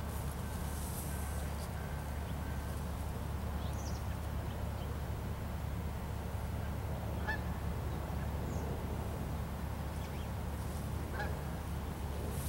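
Steady low hum with faint rustling of nylon tent fabric and mesh as an inner net tent is hung inside a canopy tent. Two brief honking calls sound, one a little past the middle and one near the end.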